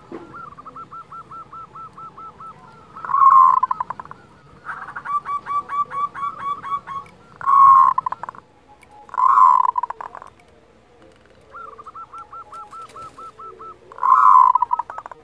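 Zebra dove (perkutut) giving its 'kerot' call: runs of quick, even staccato notes alternate with four louder, short rolling coos. This is the call kept to rouse other doves' breeding drive and excitement.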